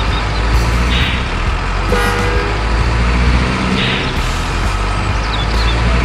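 Simulated diesel truck engine running steadily, with a short horn toot about two seconds in and brief hisses about one and four seconds in.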